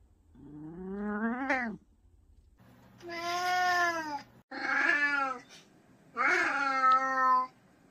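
A senior domestic cat meowing four times in long, drawn-out calls, the first sliding upward in pitch.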